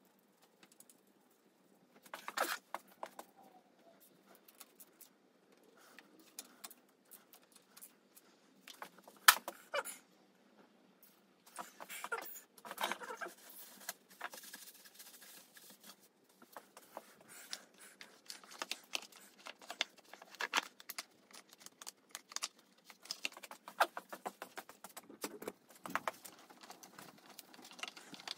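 Scattered clicks, taps and light rattles of hands refitting motorcycle engine-bay parts: connectors, hoses and the plastic airbox being pushed back into place. There is one sharp click about nine seconds in.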